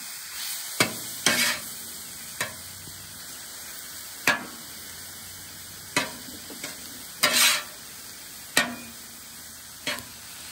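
Chopped chicken sizzling on a hot flat-top griddle, while a metal spatula scrapes across the steel surface, flipping the pieces. There are about eight sharp scrapes spaced a second or two apart over a steady sizzle.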